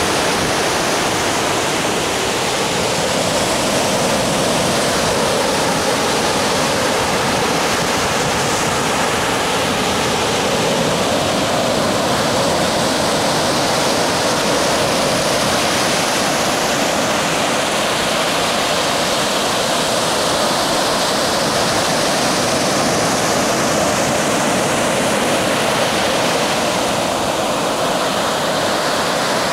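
Small surf breaking close to shore and washing up the sand: a steady, loud rush of sea water.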